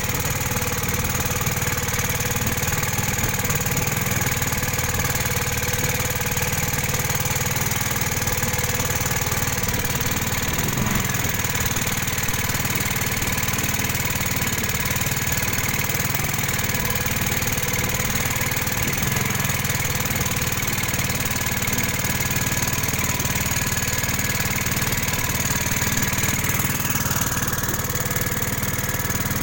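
Pumpboat engine running steadily while the boat is under way.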